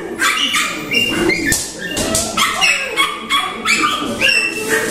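Six-week-old Maltipoo puppies yipping and whimpering in a rapid run of short, high-pitched calls, about two a second.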